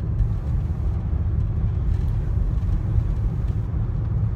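Steady low rumble of road and engine noise heard inside a moving vehicle's cabin.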